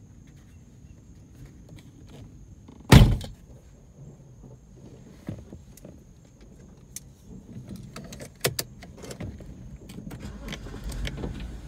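A single loud, sharp bang about three seconds in, dying away within half a second, followed later by scattered ticks and a low rumble that builds near the end.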